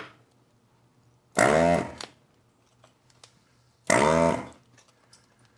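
Desoldering gun's vacuum pump firing twice, each a buzzing pull of about half a second, sucking solder off a capacitor's leads.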